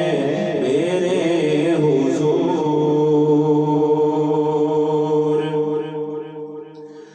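A man singing a naat without accompaniment, drawing out the end of the refrain line. His voice wavers through a run of notes, then holds one long steady note that fades away near the end.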